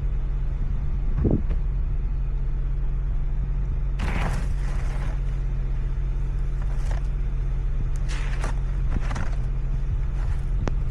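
Car engine idling steadily with a low hum. Several short rushing noises come and go over it, and there is one sharp click near the end.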